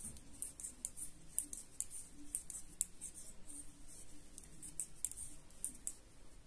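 Knitting needles clicking and scraping lightly as stitches are worked, a quick irregular run of soft ticks, several a second.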